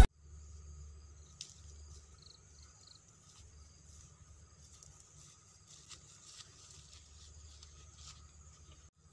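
Quiet outdoor ambience: soft rustling and footsteps through grass and undergrowth, over a steady high insect drone, with three short high chirps about two seconds in.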